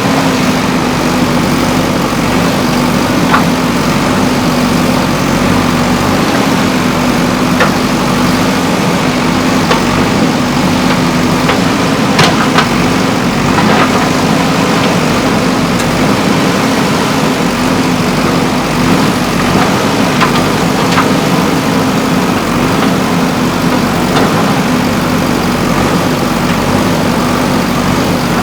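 JCB backhoe loader's diesel engine running steadily under work, with a few sharp metallic knocks scattered through, typical of the bucket striking rock and metal.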